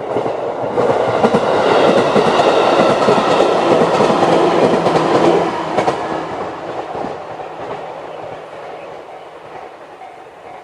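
JR 211-series electric train passing over a level crossing, its wheels clattering over the rail joints. Loud for about five seconds, then fading away as it recedes.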